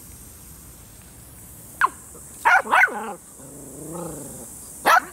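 Golden retriever puppy yapping: a short yip, then two loud high yaps that fall in pitch, a lower drawn-out "ohhh" about four seconds in, and another yap near the end.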